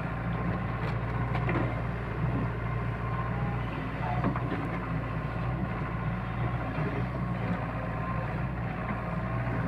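SDLG crawler excavator's diesel engine running steadily under load while its boom and bucket work in wet mud, with a few knocks about 1.5 and 4 seconds in. The machine is stuck in the mud and is working to pull itself out.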